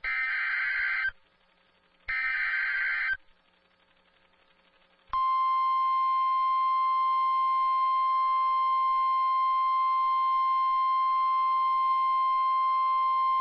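Emergency Alert System broadcast over NOAA Weather Radio: two bursts of the SAME digital alert header, a buzzy data screech about a second long each, a pause, then the steady 1050 Hz weather-radio warning alarm tone for about nine seconds until it cuts off. This is the data-and-tone sequence that opens a Severe Thunderstorm Warning.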